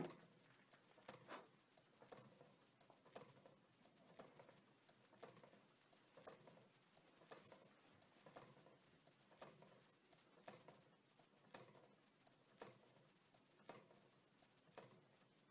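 Small low-temperature-differential Stirling engine with a magnetic displacer drive running, its mechanism giving faint, regular ticks, the strongest about once a second with softer ones between. A single louder knock comes right at the start as hands move on the engine.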